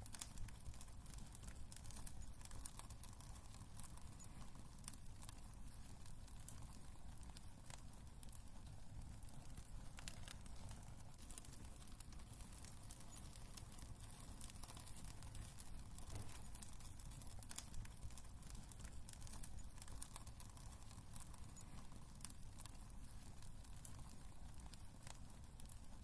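Wood fire crackling in a fireplace: irregular small pops and snaps over a low steady rumble.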